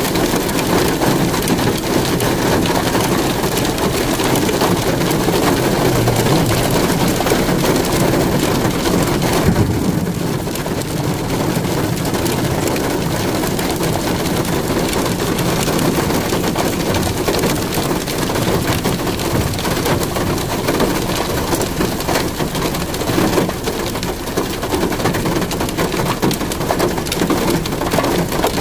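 Steady rainfall: an even, unbroken rushing noise.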